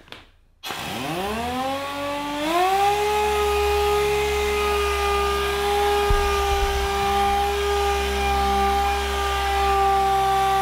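Air-powered dual-action orbital sander starting up about a second in, its whine rising in pitch as it spins up and then running steadily, dry-sanding car clear coat with 1500-grit paper to flatten orange peel.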